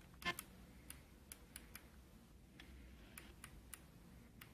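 Faint, irregular clicks of the tuning button on an iLuv FM clock radio being pressed again and again to step up the dial. There are about ten clicks, the loudest one just after the start.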